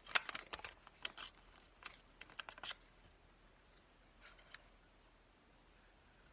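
Paper scraps being handled by hand: a quick run of crisp rustles and clicks over the first three seconds, then a couple more about four and a half seconds in.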